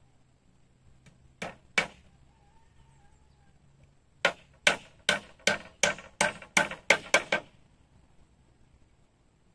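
Chopping at wood with a blade: two sharp blows, then after a pause a run of about nine quick blows, about three a second.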